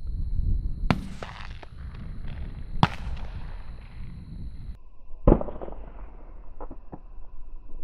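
Shotgun shots: three sharp reports about one, three and five seconds in, the last the loudest, with several fainter pops in between.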